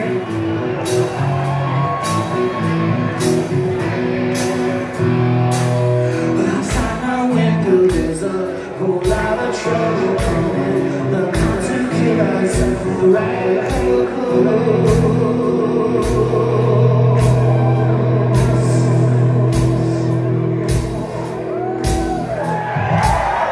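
Live hard rock band playing loud, with a male vocalist singing held, wavering notes over drums and amplified instruments.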